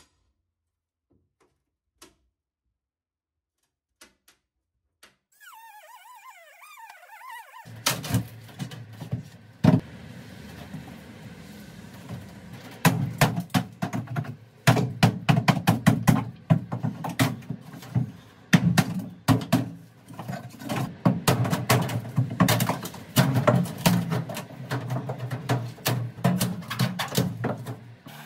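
A steel pry bar levering up old wooden floor panels: a dense run of knocks, thuds and cracking wood that starts about eight seconds in, after a few seconds of near silence.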